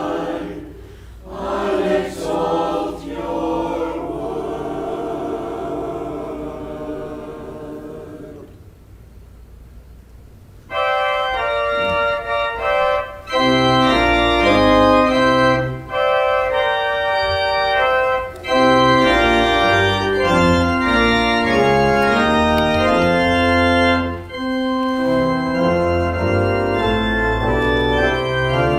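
Voices sing a closing sung response whose final held chord fades away within the first few seconds. After a short pause, a church organ comes in loudly with full chords, and a bass line joins a couple of seconds later: the start of the organ postlude.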